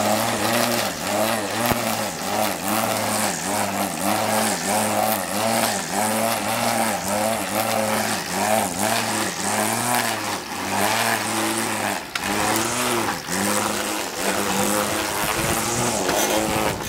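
Kimo weed wacker (string trimmer) running steadily while cutting tall grass, its hum wavering in pitch again and again. It stops abruptly at the very end.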